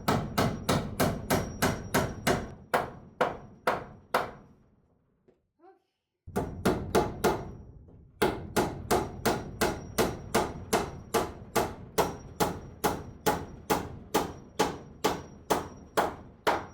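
Hammer driving galvanized nails into wooden bracing: steady, rhythmic blows at about three a second, a pause of a couple of seconds about four seconds in, then a longer run of blows.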